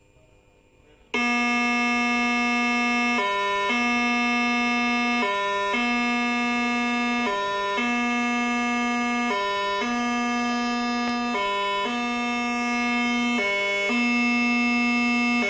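All-clear alarm sounding as a test, signalling that the emergency is over. It is a buzzy electronic tone that starts about a second in, held for about a second and a half, then drops briefly to a slightly lower pitch, repeating every two seconds or so.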